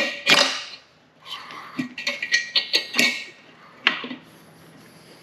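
Hand tools and metal engine parts clinking, knocking and scraping as a two-stroke motorcycle engine's top end is taken apart. There is a quick cluster of sharp metallic clicks at the start, another run of them about two seconds in, and a single knock near four seconds, with scraping in between.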